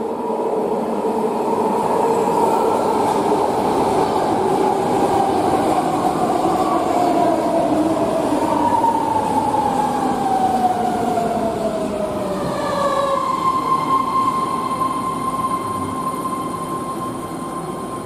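BART legacy-fleet electric train running into a station platform: steady wheel-on-rail rumble under a whine that falls slowly in pitch as the train slows. About two-thirds of the way in, the falling whine gives way to a steady high whine as the cars keep rolling past.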